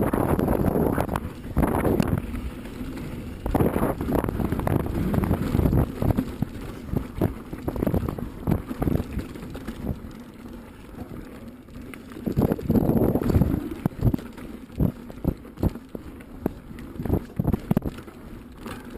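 Pivot Switchblade carbon mountain bike ridden fast down a dirt trail: tyres rumbling over the ground, with many sharp clicks and knocks from the bike rattling over rough ground.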